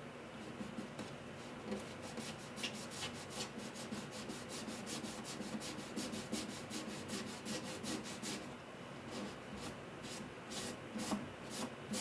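Hand sanding on guitar wood: quick back-and-forth rubbing strokes, several a second, with a short pause about three quarters of the way through before the strokes start again.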